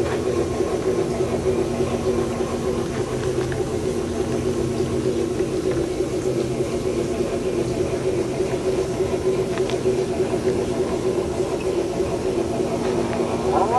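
Bachmann three-truck Shay model locomotive running on a garden railway with a steady droning hum. Near the end a model steam whistle starts, rising in pitch and then holding.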